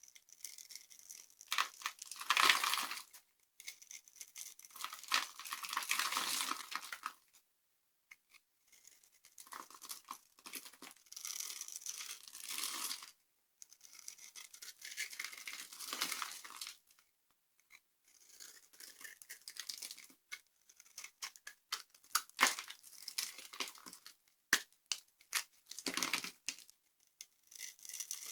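Dry soap being crushed and crumbled by hand: crackling, crunching spells of a few seconds each, with short pauses between them and single sharp snaps in the last part.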